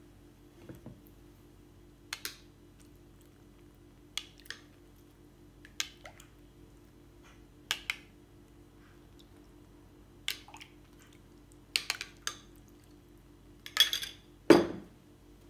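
Metal spoon clinking against a glass bowl as a liquid mixture is scooped out and spooned over sheets of yufka pastry: short clicks every second or two, with a louder, fuller knock near the end.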